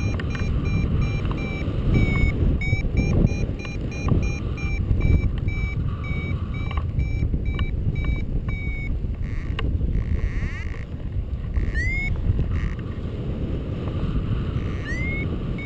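Wind rushing steadily over the microphone of a paraglider in flight. Over it, a variometer beeps a short high tone about twice a second, the sign that the glider is climbing. The beeping breaks off for a couple of seconds past the middle, then starts again.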